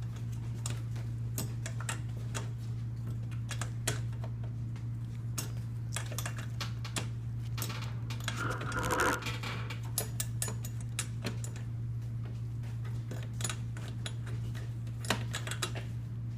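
Light metallic clicks and clinks of hand tools being handled while the spark plug is taken out of a 4-cycle string trimmer, with a brief louder rattle about nine seconds in, over a steady low hum.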